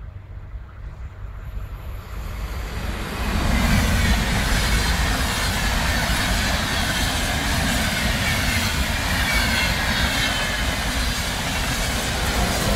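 Intercity passenger train passing at speed: the rumble and rush of the coaches' wheels on the rails builds over the first few seconds, then stays loud and steady as the coaches run by.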